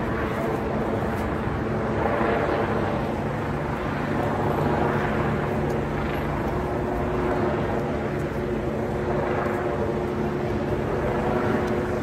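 Steady road traffic, the engines and tyres of passing vehicles making a continuous noise. A low engine hum holds for the first half, then a higher one for the second half.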